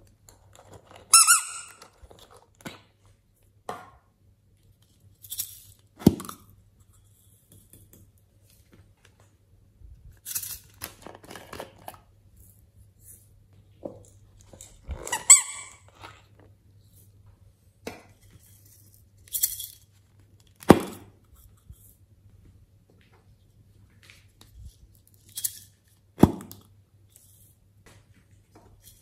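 Hollow plastic squeeze toys pressed by hand, giving two high squeaks with air rushing out. Short hissing spurts come as their contents squirt out, and there are three sharp knocks as toys and bottles are set down on a wooden table.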